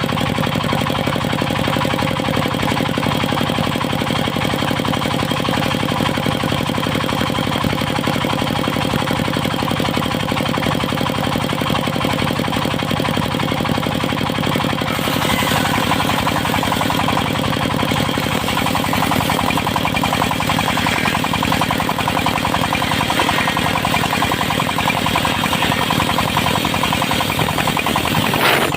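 Engine of a circular-saw sawmill running steadily with an even firing beat; about halfway through a higher hiss joins it.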